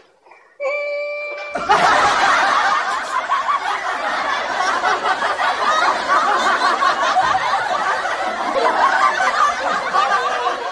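Many people laughing together, a loud dense crowd laugh that cuts in abruptly about a second and a half in and carries on without letting up. Just before it comes a brief held tone.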